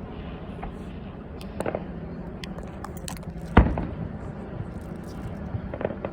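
Fireworks bursting: a few sharp booms, the loudest a little past halfway, with scattered crackling.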